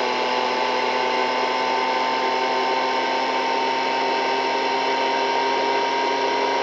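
Engine held at steady high revs, a whining drone with many overtones that sinks very slightly in pitch.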